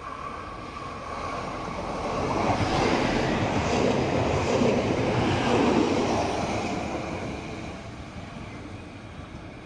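DB Class 633 diesel multiple unit passing close by. The engine and the wheels on the rails build up, are loudest from about two to six seconds in, then fade as the train runs away.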